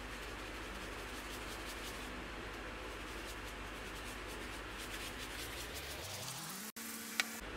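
Pepper mill grinding black pepper: a gritty grinding of repeated twists over a steady background hiss, with a single sharp click near the end.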